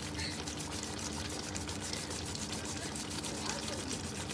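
A pot of thick red stew bubbling at the boil, a steady crackle of many small popping bubbles, with a low steady hum underneath.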